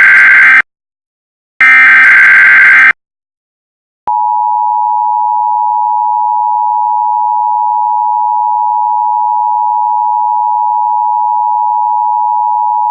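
Emergency Alert System alert: the end of one harsh SAME header data burst, then a second full burst about a second long. After a second of silence, the EAS two-tone attention signal (853 and 960 Hz together) starts about four seconds in and holds at a steady pitch and level.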